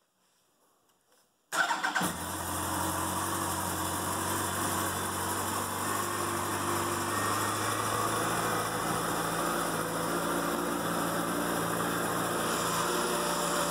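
2003 Yamaha YZF-R1's inline-four engine starting about a second and a half in, then settling into a steady idle.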